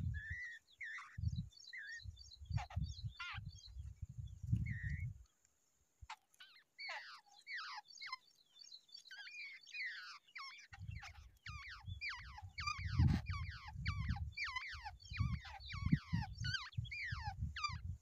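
Babblers calling at their nest: short high notes that each slide downward, a few at first, then a quick run of two or three a second from about six seconds in. Low rumbles come and go underneath.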